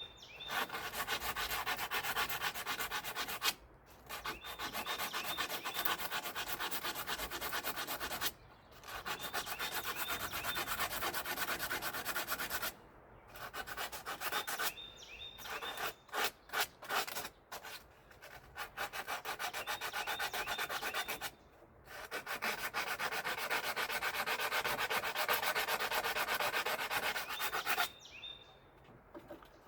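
Rapid back-and-forth scrubbing on a crusty, rusty metal part to clean it, in spells of several seconds with short pauses and a choppier stretch of short strokes near the middle.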